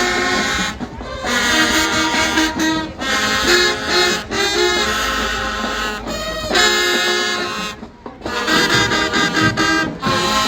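High school marching band's brass section playing loud held notes in phrases, with short breaks between them.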